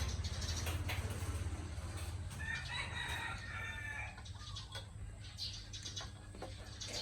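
A rooster crowing once, starting about two and a half seconds in and lasting a little under two seconds, over a low steady rumble.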